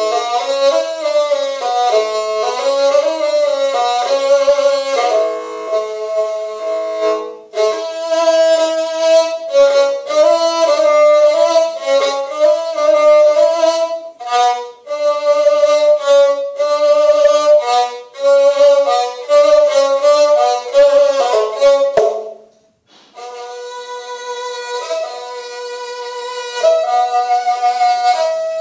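Kyl-kobyz, the Kazakh bowed instrument with two horsehair strings, played solo in a traditional kui: a bowed melody of quickly changing notes with a raspy, overtone-rich tone. It breaks off briefly about 22 seconds in and resumes softer.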